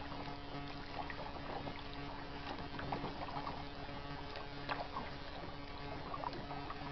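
Kayak paddling: the paddle blades dipping and water dripping and trickling off them in small irregular splashes, over a steady hiss.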